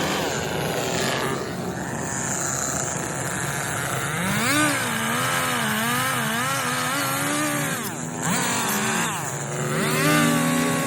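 Chainsaw engine running while carving wood, its pitch wavering up and down as the throttle is worked, with brief drops in revs about one and a half, eight and nine and a half seconds in.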